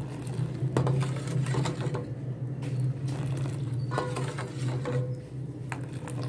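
Milk being stirred in a steel pan with a ladle, scraping and clinking now and then against the pan, over a steady low hum.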